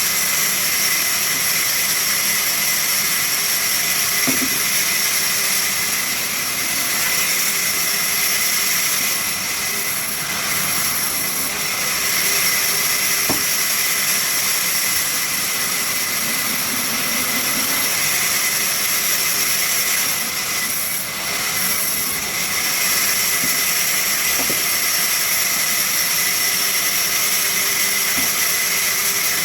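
Sawmill saw machine running steadily: a loud, even mechanical hiss with high whining tones.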